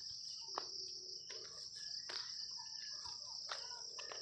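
Steady high-pitched drone of an insect chorus in the vegetation, with a few soft knocks at irregular moments.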